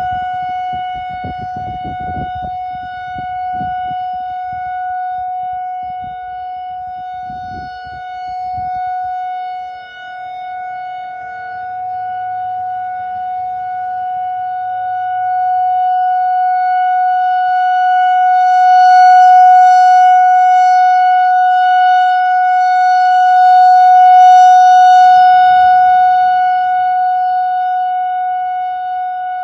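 Whelen WPS 4004 electronic outdoor warning siren sounding a steady single tone, its loudness slowly falling and then swelling as the rotating speaker head turns. A low rumble sits under it for the first several seconds.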